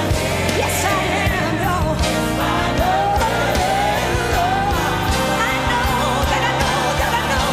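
A song playing: a solo singer's voice gliding through a melody over a band with a steady beat.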